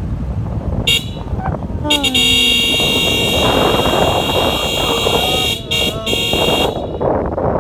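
Car driving on a rough road with a steady low rumble from the engine and tyres. A short shrill high tone comes about a second in, then a long shrill high sound from about two seconds in that breaks twice before stopping near the end, with voices under it.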